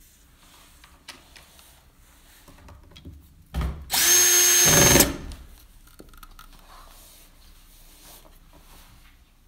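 Cordless drill driving a screw through a furniture-leg mounting plate into the cabinet: a short blip, then about a second of steady motor whine, roughly four seconds in.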